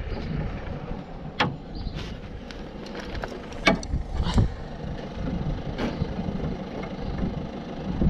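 Steel combination spanner clinking against a nut on the car's front suspension as it is turned, lifted off and refitted: several sharp metal clicks spaced irregularly, over a low background rumble.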